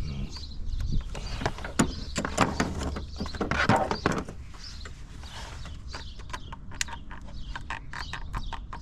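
Hand tools and loose parts clicking and rattling as fasteners are taken out and a component is lifted off the engine, with a denser scrape of handling about three and a half seconds in, over a steady low hum.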